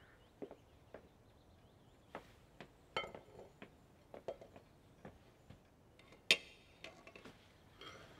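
Footsteps at about two a second, then light metallic clinks and knocks as a metal fireplace screen is handled. The loudest is a sharp clink with a short ring about six seconds in.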